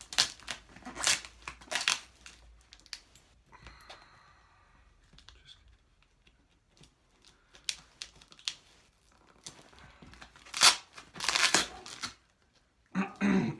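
Tape-and-plastic wrapping on a cardboard parcel being cut with scissors and ripped away, in sharp tearing and crinkling bursts during the first two seconds and again about three-quarters of the way in, with quieter snipping and handling between.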